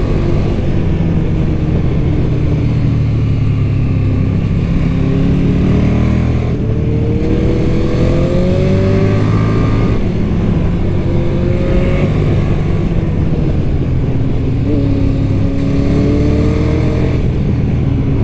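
KTM 1290 Super Duke R's V-twin engine through its stock exhaust, pulling hard under acceleration: the pitch climbs and drops back several times as it shifts up through the gears.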